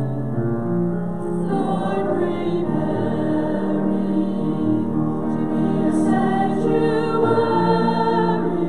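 A choir singing a slow worship song in sustained harmony, with long held chords.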